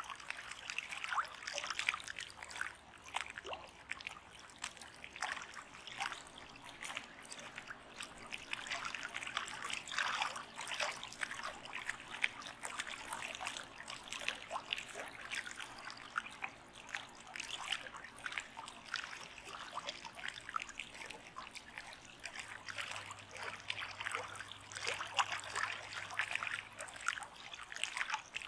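Water trickling and splashing lightly: a continuous, irregular patter of small drips and gurgles.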